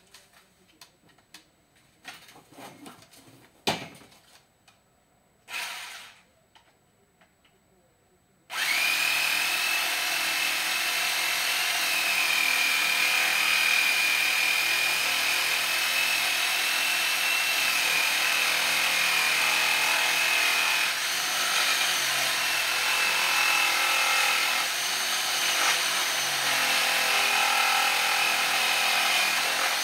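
Some clicks and knocks of handling, then about eight seconds in a small power tool starts and runs steadily with a high whine.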